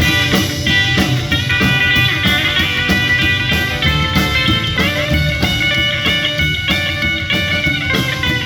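Rock and roll band playing an instrumental break without vocals: guitar over bass and drum kit.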